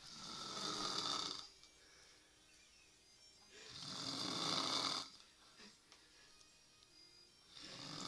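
Elderly woman snoring in her sleep: three snores about three and a half seconds apart, each swelling and then breaking off, with quieter breathing between them.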